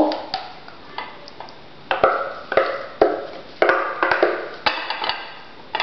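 Hummus being scooped out of a plastic food processor bowl: a utensil knocks and scrapes against the plastic in a series of sharp taps, roughly one a second.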